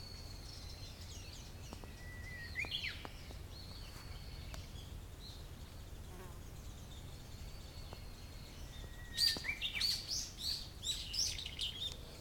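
Japanese bush warbler singing: about two seconds in, a long low whistle that breaks into a quick rising flourish, and near the end another long note followed by a fast run of loud repeated notes, over a steady low background rumble.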